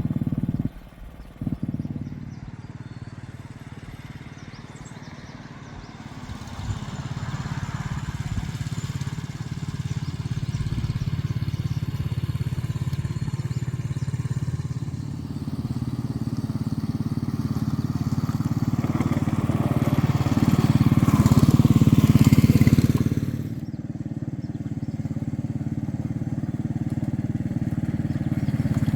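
A work machine's engine running as it carries a load, rising in level through the middle and dropping suddenly about 23 seconds in.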